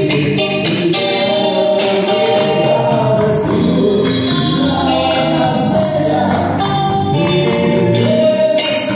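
Rock band playing live: a man singing into a microphone over electric guitar, bass guitar and drum kit, with cymbal crashes every couple of seconds.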